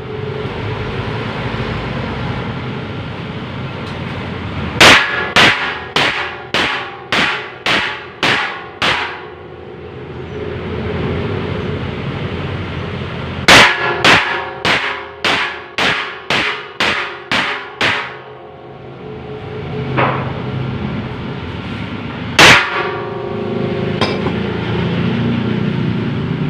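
Repeated ringing metal clangs over a steady machine drone. One run of about eight quick strikes, roughly two a second, comes about five seconds in. A second run of about ten follows near the middle, then two single clangs later on.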